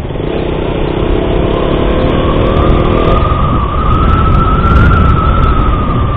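Motorcycle engine running at road speed with heavy wind rush, its note climbing gently over the first three seconds. A steady high whine comes in about two seconds in and holds.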